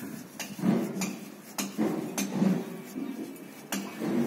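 Dry alyssum seed heads being crushed and rubbed between the palms: an irregular run of crackles and sharp clicks over a dry rustle, as the pods break open to free the seeds.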